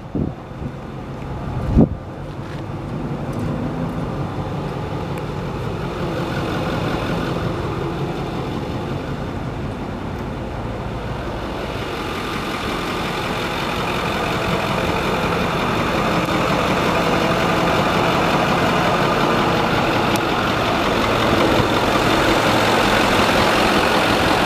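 2008 Ford F-450 Super Duty truck's engine idling steadily, growing louder toward the end. A single sharp knock about two seconds in.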